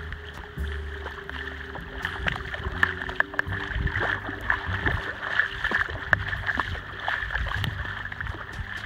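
Heavy rain pelting a flooded street, a steady splashing hiss full of sharp individual drop hits, over a low rumble and a faint steady hum.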